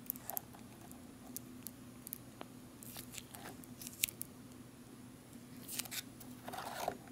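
Foil-laminate MRE peanut butter pouch crinkling and crackling in the fingers as the peanut butter is squeezed out of it: faint scattered crackles, with a longer rustle near the end.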